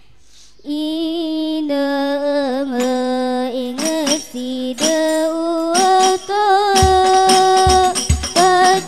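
A girl's solo voice begins an Islamic devotional song in the hadroh style, singing a long, ornamented phrase with a bending pitch. About two-thirds of the way through, the ensemble's frame drums come in with deep, rhythmic beats under the singing.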